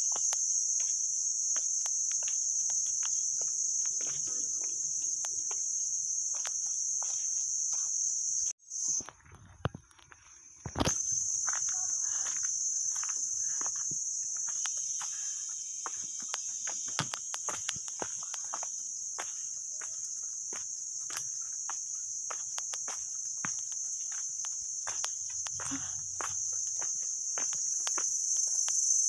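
Steady high-pitched insect chorus of the hillside forest, with a short break about nine seconds in. Scattered light clicks sound underneath.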